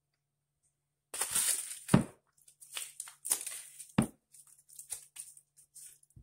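Dry corn husk wrappings crackling as they are handled and pulled from blocks of hard cane sugar (panela), with two sharp knocks as a heavy sugar block is set down on a wooden cutting board.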